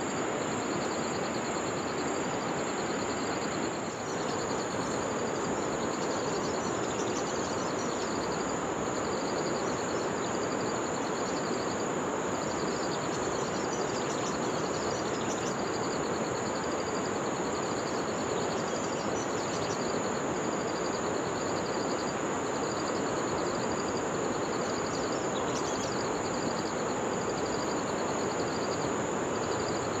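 Outdoor ambience: a steady rushing noise with insects trilling over it, one continuous high whine and a second, pulsing chirr that repeats in short groups throughout.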